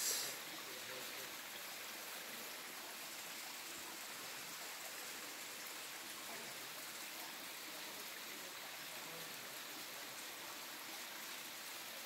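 Small waterfall trickling down a rock face: a steady, even hiss of falling water.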